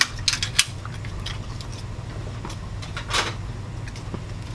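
Clicks and clatter of hands unclipping a small cooling fan and plastic parts from a Kyocera FS-4200 laser printer's chassis: a few sharp clicks at the start and a louder scrape about three seconds in, over a low steady hum.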